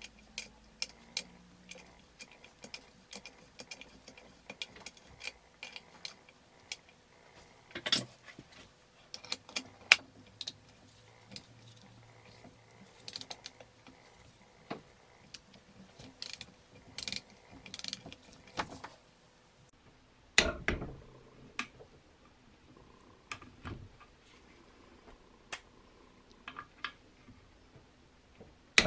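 A ratcheting torque wrench clicking in short, irregular runs as it turns a service-hole plug into an engine block, with one louder knock about two-thirds of the way through.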